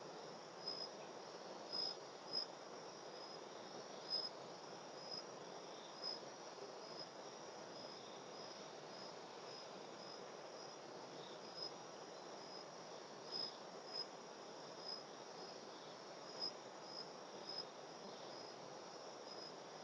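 Faint insects chirping, crickets or similar: a steady high trill with louder short chirps at irregular intervals, over a faint background hiss.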